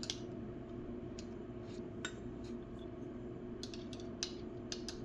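Light metal clicks and clinks of hand tools being handled, a wrench fitted onto a screwdriver's hex shank, scattered irregularly and more frequent in the second half, over a steady low hum.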